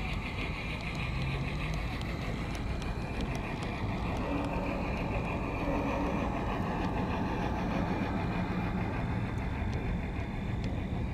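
Large-scale (G gauge) garden railway train, a Shay locomotive and its tank and log cars, rolling steadily past on the track with a continuous rolling rumble and a few faint clicks of wheels over the rail joints.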